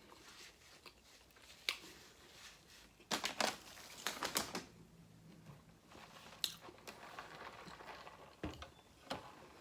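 Fast-food packaging handled at a table: scattered crinkles and clicks, with the loudest cluster about three to four and a half seconds in.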